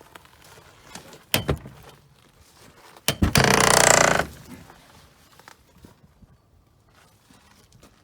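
A few sharp knocks, then a loud rasping scrape lasting about a second, a little before the middle.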